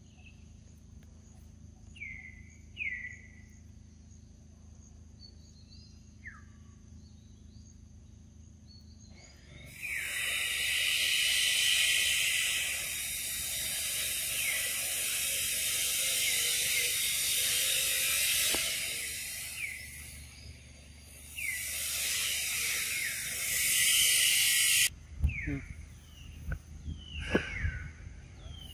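Loud, steady insect buzzing, the kind of cicada chorus typical of tropical forest, that starts about a third of the way in, dips briefly, and cuts off sharply near the end. Before it there are a few short descending chirps, and after it a run of sudden thumps and scuffles.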